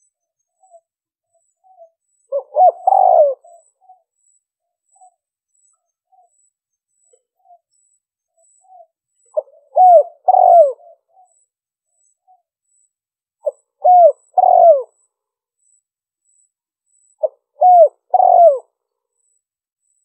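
Spotted dove cooing: four phrases, each of three coos (a short note, then two longer ones), a few seconds apart, with faint soft notes in between.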